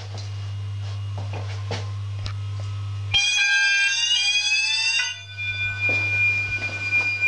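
Electronic fire alarm sounder going off about three seconds in: a sweeping, rising tone for about two seconds, then a steady high continuous tone. A steady low hum is heard before it starts.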